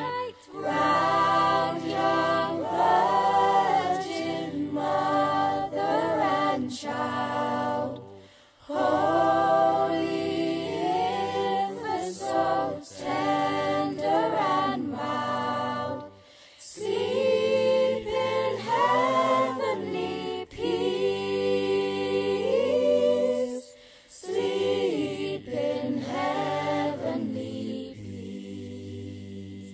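A youth choir of mixed teenage voices singing a cappella, in long phrases broken by short pauses about every eight seconds; the last note fades away near the end.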